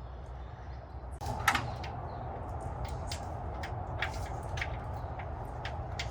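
Scattered sharp clicks and knocks over a steady low hum that gets a little louder about a second in.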